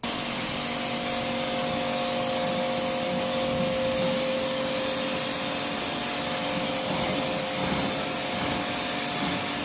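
Pressure washer running, its jet spraying water through a radiator core to wash it clean. The spray gives a steady hiss over an even whine from the pump.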